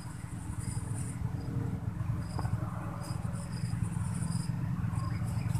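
Insects chirping in the surrounding vegetation: a high, buzzing trill that comes and goes in stretches of about a second, with short, higher chirps repeating between, over a steady low rumble.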